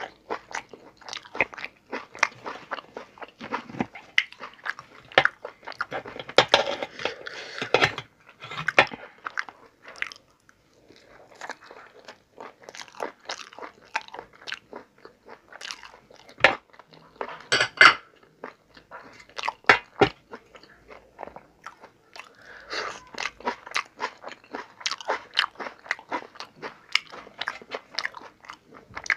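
A man chewing a meal of paratha and curries close to the microphone: sharp, wet crunching and mouth clicks in uneven spurts, with a short lull about ten seconds in.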